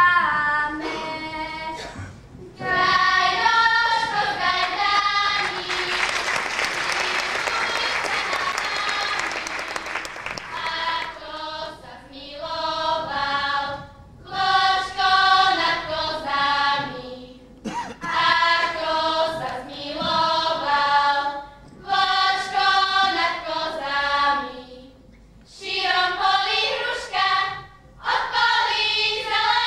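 A girl sings a folk song solo, then applause for about five seconds, then a girls' choir sings in short phrases with brief pauses between them, without audible accompaniment.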